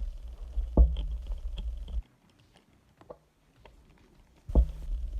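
Screws being twisted back into a PS4 controller during reassembly: two stretches of about two seconds of low rumbling, each starting with a sharp click, with scattered small clicks between them.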